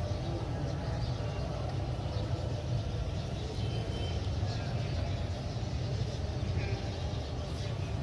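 Steady low rumble of open-air background noise, with a few faint, short, high chirps.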